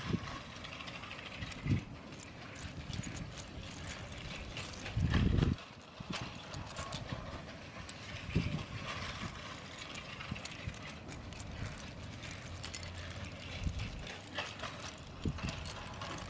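Lego train running on plastic track, its wheels clicking and clattering irregularly, with one short low thump about five seconds in.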